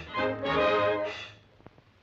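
Orchestral cartoon music with brass, ending on a held chord about a second and a half in. After it only faint hiss from the old film soundtrack is left.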